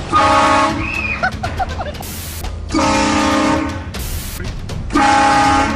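Air horn blasted three times in loud, steady bursts, the second the longest and the last the shortest.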